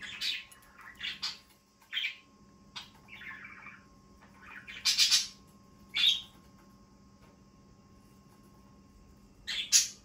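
A pet parrot calling in a string of short chirps and squawks, the loudest about five seconds in and again near the end, with a few quiet seconds between.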